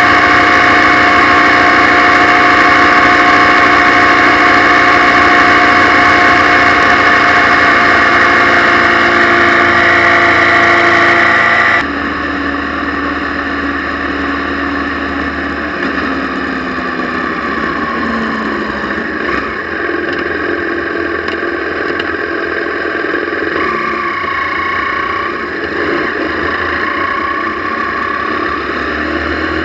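Motorcycle riding on a wet road: the engine runs steadily under a loud rush of wind over the microphone. About twelve seconds in the sound drops abruptly to a quieter level, and the engine note then shifts up and down.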